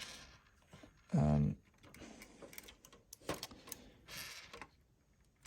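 Small clicks and rustles of hands moving a 1:18 diecast Dodge Ram model truck into a pose, its suspension parts shifting, with a brief hum of a voice about a second in.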